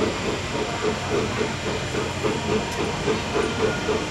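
Two-foot narrow-gauge steam train running, with a steady hiss of steam and a fast, even beat of about four to five a second.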